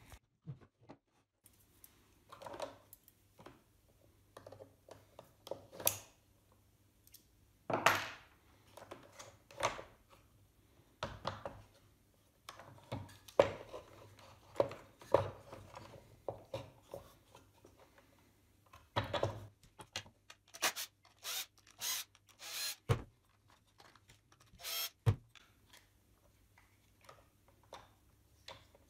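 Wooden parts of a model car being handled and taken apart on a wooden tabletop: scattered irregular knocks, clunks and scrapes, with a quick run of sharp clicks about two-thirds of the way through.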